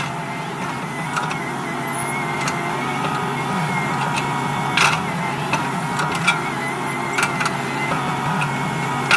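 Excavator engine running steadily, with a thin steady whine above it and several sharp metallic knocks or clanks in the second half.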